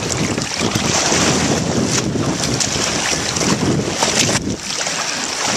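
Seawater rushing and splashing along the side of a moving boat and over a blue marlin held at the hull, with wind buffeting the microphone.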